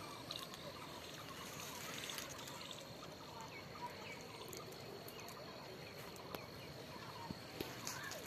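Faint open-air field ambience: a steady hiss with scattered distant bird chirps and a thin steady high whine, and a few light clicks near the end.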